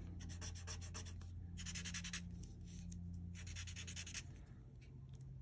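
Paper tortillon rubbing graphite around the edge of a small paper drawing tile: quiet, quick scratchy strokes that come in short spells, louder twice.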